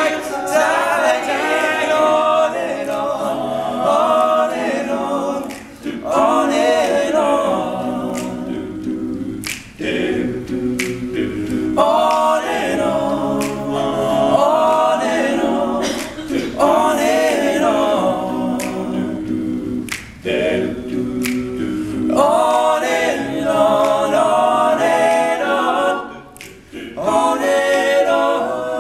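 All-male a cappella group singing in close harmony, with sharp percussive clicks a few times.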